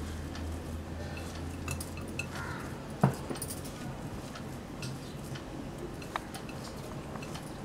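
Hands kneading soft dough in a glass mixing bowl, with light clinks of bangles and rings against the glass and one sharper knock about three seconds in.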